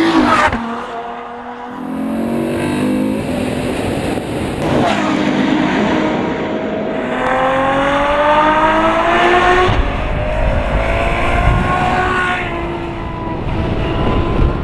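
Ferrari F12berlinetta's V12 engine under hard acceleration, its note climbing in pitch through the gears with a break between each, then easing off near the end.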